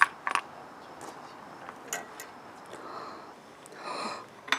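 A few sharp metallic clicks and knocks as a mountain bike's stem and fork are taken apart by hand, with a brief scraping rub about four seconds in.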